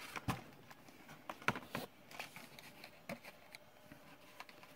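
Die-cast toy cars and their card-and-plastic packaging being handled: scattered light clicks and rustles, with sharper clicks about a quarter second in and about a second and a half in.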